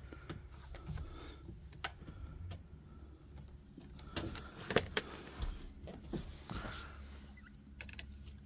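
Scattered light clicks and knocks of a truck's interior trim piece being worked loose by hand around the steering-column shift lever, over a low steady hum.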